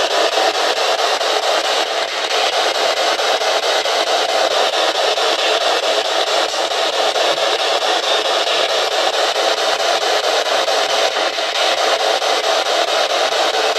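P-SB11 spirit box sweeping through radio frequencies: a loud, steady hiss of radio static, chopped into a fast, even flutter by the rapid frequency sweep.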